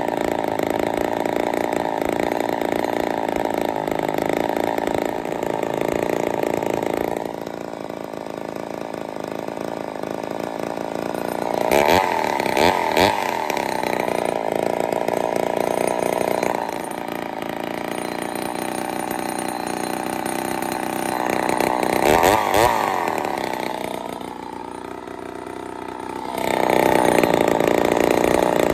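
Ported Poulan 245A two-stroke chainsaw engine running on its first start. It runs fast, settles lower about seven seconds in, revs up briefly twice, and dips lower again before picking back up near the end.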